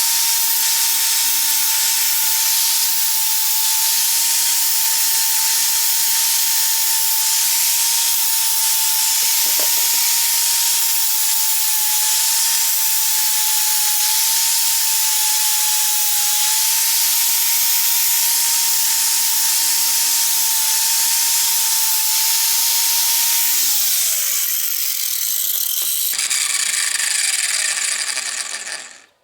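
Small electric power tool running steadily at speed, a steady motor whine under a loud hiss, as it scours rust off a door hinge. About 24 s in the motor winds down, and the sound stops near the end.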